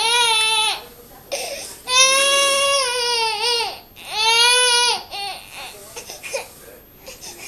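An infant crying in long, loud wails: one trailing off just after the start, then two more, before it settles to faint sobs for the last two seconds or so.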